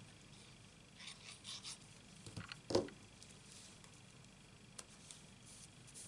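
Faint rustling and soft handling of cardstock as a paper cut-out is laid onto a card and pressed down by hand, with a soft knock a little under three seconds in and a small click later.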